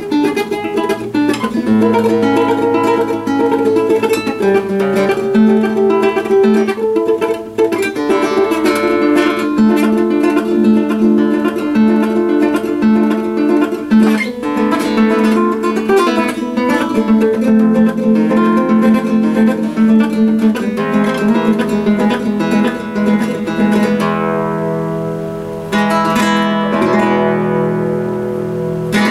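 1960s Juan Estruch nylon-string classical guitar from Barcelona, with a spruce top and Brazilian rosewood back, played solo fingerstyle: a steady flow of plucked notes and chords. Near the end a chord is left to ring and fade, then another is struck and left to ring.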